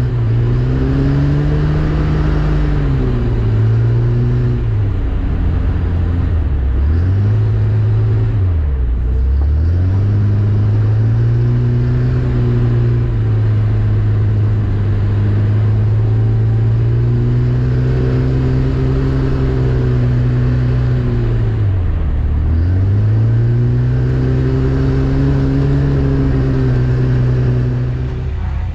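Lada Zhiguli's four-cylinder engine, heard from inside the cabin, held at high revs, with the pitch dropping and climbing back about four times as the driver lifts off and accelerates again.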